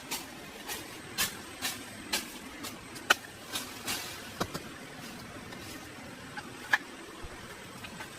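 A series of sharp knocks, about two a second for the first four seconds or so, then two more near the end, over a steady low background noise.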